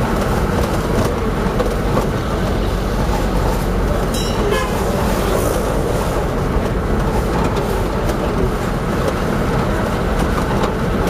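Steady rumble of a taxi's engine and tyres on the road, heard from inside the cabin, with a brief higher-pitched sound about four seconds in.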